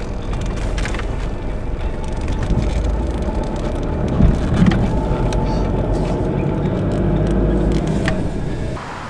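A vehicle driving: steady engine and road rumble that eases off just before the end.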